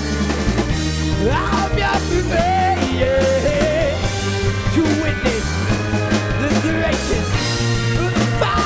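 A soul-rock band playing live: steady bass notes under a wavering melody line, with a sung vocal.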